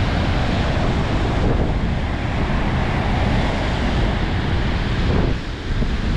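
Strong wind buffeting the microphone over the rush of Baltic Sea surf, easing briefly about five seconds in.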